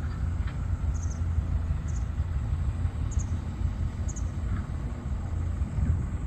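Wind buffeting the microphone, a steady low rumble, with faint high chirps about once a second.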